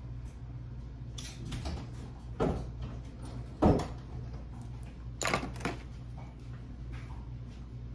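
Several short knocks and clatters, the loudest about three and a half seconds in, over a steady low hum.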